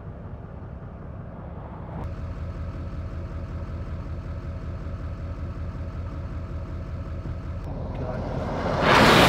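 Vehicle on the move: a steady engine and road rumble that gets louder about two seconds in. A loud rushing whoosh swells and fades near the end.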